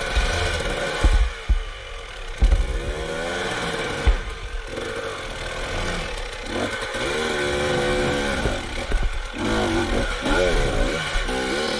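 Enduro dirt bike engine revving up and down in repeated short bursts as it is ridden over rocks. Several heavy thuds come in the first few seconds.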